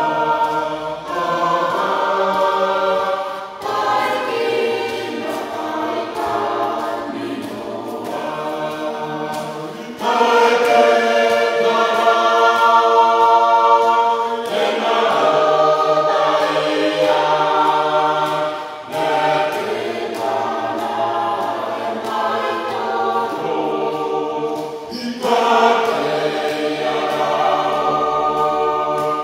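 Mixed choir of men's and women's voices singing a hymn in Gilbertese, in sustained phrases with short breaks between them; the singing grows louder about ten seconds in.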